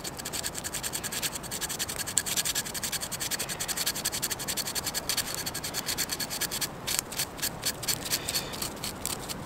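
A knife blade scraping birch bark in quick repeated strokes, rasping off fine tinder dust from the oily bark for lighting a fire.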